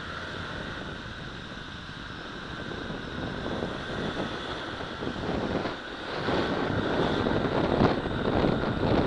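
Motorcycle on the move in traffic, wind buffeting the microphone over the engine and road noise, growing louder about six seconds in.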